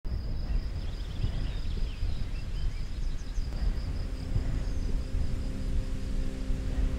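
Wind buffeting the microphone outdoors, with small birds chirping faintly in the first few seconds. About four seconds in, soft background music with long held notes comes in under the wind.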